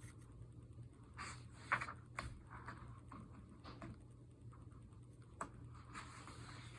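Faint rustling and light taps of paper pages as a small coloring book is handled and its pages turned, with a few sharper clicks scattered through, over a low steady hum.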